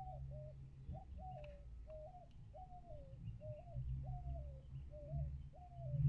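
A bird giving a series of about ten short, low calls, each rising then falling, about two a second, over a steady low hum.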